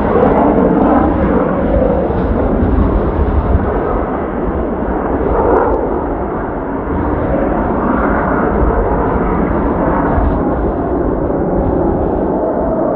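Jet noise from the Blue Impulse's Kawasaki T-4 jets, a steady rushing that swells a little twice, mixed with strong wind buffeting the microphone.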